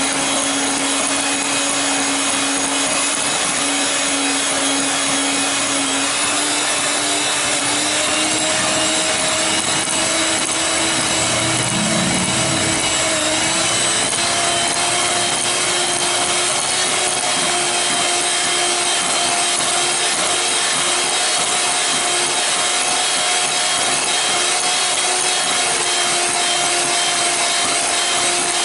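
Electric hand mixer running steadily, its beaters whisking chocolate sponge-cake batter in a glass bowl. The motor's whine rises slightly in pitch partway through.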